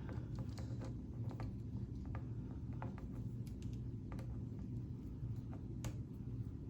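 Scattered light clicks and taps of K'nex plastic pieces being handled and clipped together, irregular and a few per second, over a steady low hum.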